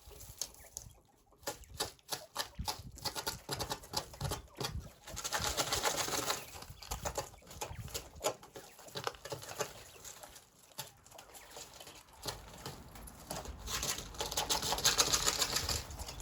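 Coturnix quail moving about their pen: scattered sharp taps, with two longer rustling stretches about five seconds and fourteen seconds in.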